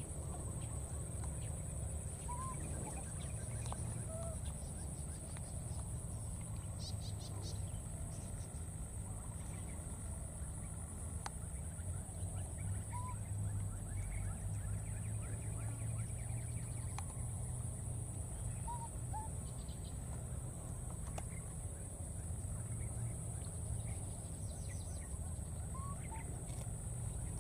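Outdoor background sound: a steady high-pitched hiss and a low rumble, with a few short, faint chirping calls scattered through it and an occasional soft click.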